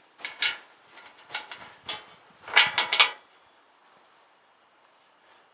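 Muffler hardware and hand tools clinking and scraping as a muffler is fitted to a Dongfeng tractor's exhaust: a run of short, sharp clicks and rattles over about three seconds. The loudest cluster comes near the middle, then it stops.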